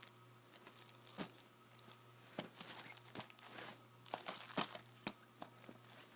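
DVD packaging being torn open and crinkled by hand, with irregular crackles and a busier flurry about four seconds in.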